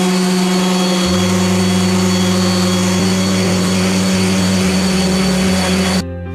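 An electric woodworking power tool running steadily at full speed with a strong motor hum and hiss, then cut off abruptly about six seconds in, over background music.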